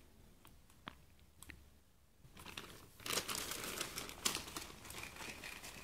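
A few light clicks, then from about two and a half seconds in a loud, close crinkling and rustling, as of plastic handled right at the microphone.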